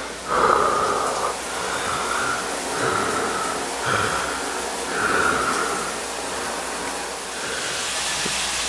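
Shower running, a steady hiss of water, with about six short higher-pitched sounds of half a second or so over it.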